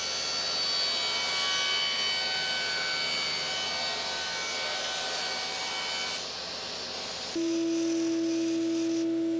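Table saw running as a clear plastic sheet is fed through the blade, a steady cutting noise with high whining tones. About seven seconds in it gives way to a narrow belt sander running with a steady hum as the plastic's edge is sanded.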